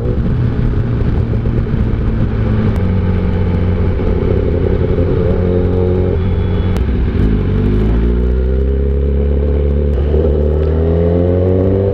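Kawasaki ZX10R superbike's inline-four engine under way, heard over a hiss of wind and road noise. Its pitch holds fairly level, drops briefly about six to seven seconds in, then climbs steadily as the bike accelerates.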